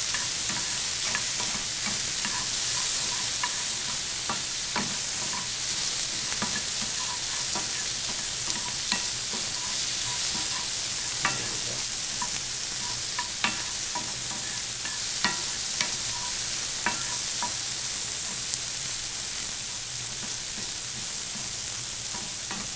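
Shrimp frying in a nonstick skillet: a steady sizzle, with scattered light clicks and scrapes as the shrimp are turned with a wooden spatula.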